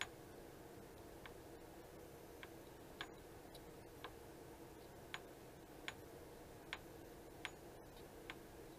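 A hobby knife's steel blade clicking against a small metal part of a Cox Babe Bee model engine as it is worked, about ten faint, sharp ticks at uneven spacing, roughly one a second, over a quiet background hum.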